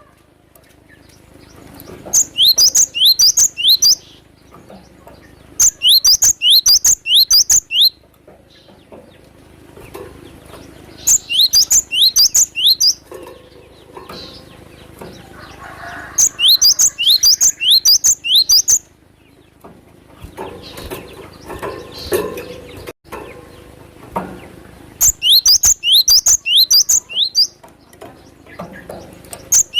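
Cinereous tit (glatik batu) singing in loud bursts of rapid, high, falling whistled notes, five phrases a few seconds apart with quieter gaps between.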